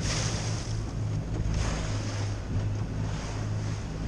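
A small motorboat under way at speed: a steady low engine drone under the rush and hiss of water and spray at the bow, swelling every second or two, with wind buffeting the microphone.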